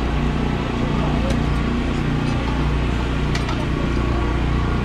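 Indistinct voices of people milling about an open-air market, over a steady low rumble.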